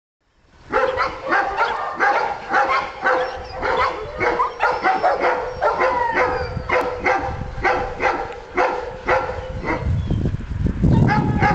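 Dogs barking in a fast, steady run of about two to three barks a second, with a few whining yips mixed in. A low rumble rises under the barking near the end.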